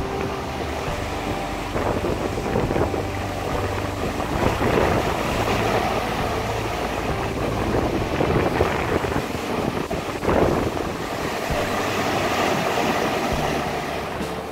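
Wind buffeting the microphone over the rush of churning wake and waves from a sailing catamaran under way in rough, open seas, swelling and easing in gusts. Background music is faint near the start and returns near the end.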